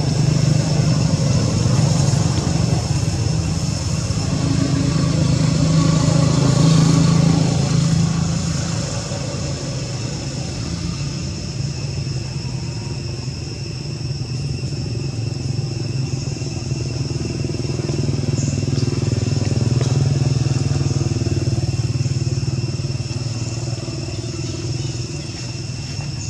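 A motor engine running with a steady low drone that swells and fades, loudest over the first eight seconds and again around twenty seconds in. Two thin, steady high tones sit above it.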